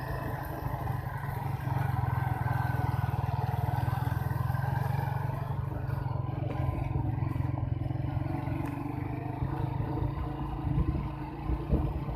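Suzuki GSX-S150's single-cylinder four-stroke engine running steadily, getting louder a little under two seconds in.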